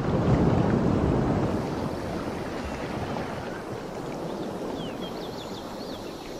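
Steady rushing outdoor noise, loudest in the first second or so, with a few quick high chirps about five seconds in.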